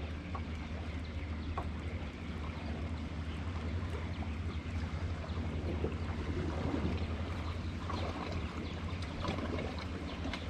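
Bow-mounted electric trolling motor running with a steady low hum, while water laps and trickles against the boat's hull with small splashes and ticks.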